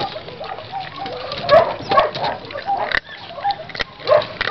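Puppies eating dry kibble from a metal bowl: sharp clicks and crunches of food and bowl, with short puppy vocal noises several times.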